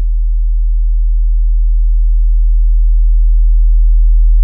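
A steady 40 Hz sine-wave test tone, the track an amplifier dyno uses for its certified and uncertified power runs, growing slowly louder.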